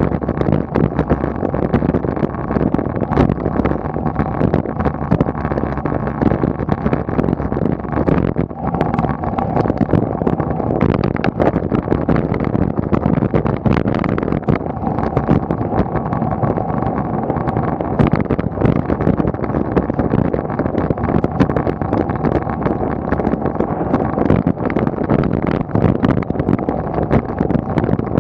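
Steady wind and road noise on a bike-mounted action camera's microphone while riding a road bicycle uphill, with many small clicks and rattles scattered through it.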